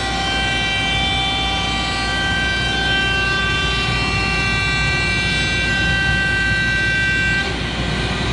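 CNC router running, its spindle giving a steady high whine of several pitches over a dense rushing machine noise; most of the whine drops out near the end.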